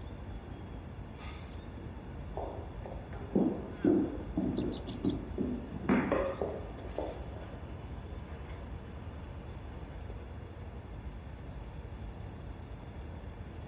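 Small birds chirping in short, high calls over a steady background hiss, with a cluster of louder low knocks and shuffles in the middle.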